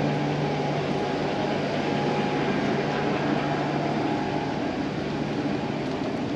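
A steady mechanical hum under a rushing noise, with the low hum dropping away near the end.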